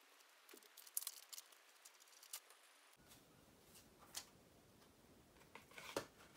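Faint handling noises of a small cardboard box being opened and its contents pulled out: a few soft clicks and paper rustles, spaced a second or two apart, with a small cluster near the end.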